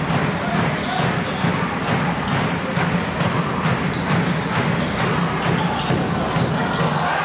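Basketball bouncing on a hardwood court with players' footsteps, a run of irregular knocks over a steady crowd murmur in a large hall.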